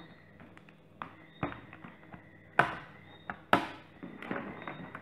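Back cover of a Blu Studio 7.0 phone being pried off with an opening pick: a run of small clicks and two loud sharp snaps past the middle as the cover's retaining clips pop loose from the frame.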